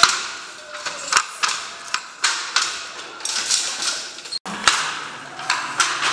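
Wooden handloom being worked by a weaver: a run of irregular wooden clacks and knocks, roughly two to three a second, with a short swish between some of them.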